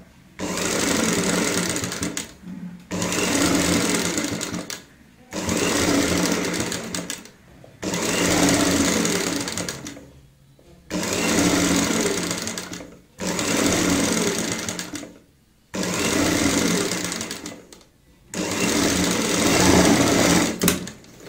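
Sewing machine stitching cord piping onto a fabric edge in short runs, about eight bursts of roughly two seconds each with brief stops between them.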